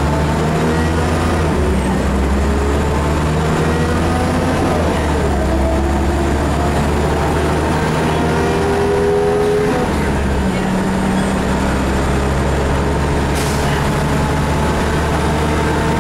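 Cabin sound of a Scania L94IB bus under way: its rear-mounted Scania DSC9 9-litre six-cylinder turbo diesel and ZF 5HP500 five-speed automatic gearbox give a steady low drone with tones above it that rise in pitch as the bus gathers speed. The drone breaks briefly about ten seconds in.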